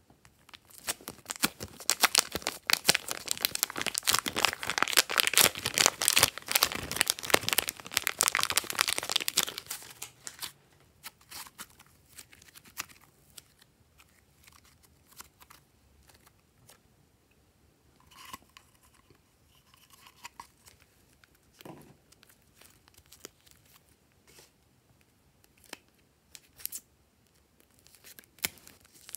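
Blue slime squeezed out of a plastic zip bag: dense crinkling of the plastic and sticky crackling of the slime for about the first ten seconds, then only faint scattered sticky pops as it is worked by hand. Near the end, a few crisp snips as scissors cut open a second bag.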